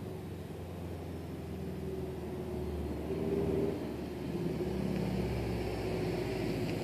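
2005 Subaru Legacy GT's turbocharged flat-four heard through an Invidia Q300 turboback exhaust as the car approaches. The exhaust note climbs in pitch twice as it accelerates.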